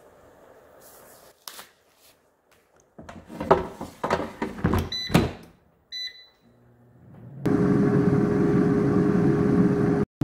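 Air fryer basket clunking as it is slid shut and latched, a few short beeps from the control panel, then about seven and a half seconds in the air fryer's fan starts and runs with a steady hum.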